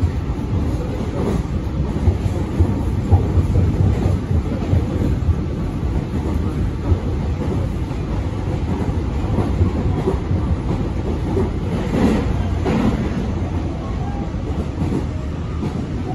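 Tobu 60000-series electric train running, heard from inside the passenger car: a steady rumble of wheels on the rails with the clickety-clack of rail joints, two sharper clacks about twelve seconds in.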